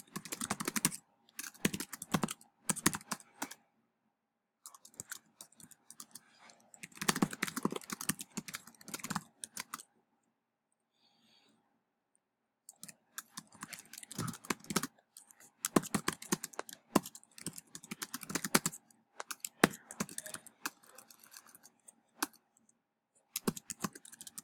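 Typing on a computer keyboard: quick runs of key clicks broken by short pauses, with a longer stop about ten seconds in.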